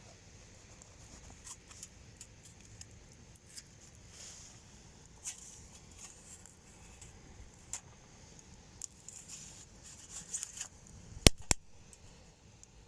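Small wood fire crackling in a homemade tin-bucket wood stove: scattered pops and ticks, with two sharp loud snaps close together about eleven seconds in.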